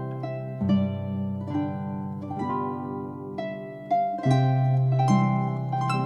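Instrumental hymn music: plucked, harp-like notes ringing out over a held low bass note.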